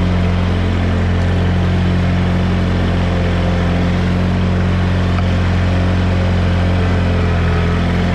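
Toro Wheel Horse 520H garden tractor engine running steadily and smoothly, purring like a kitten, as the tractor is driven along.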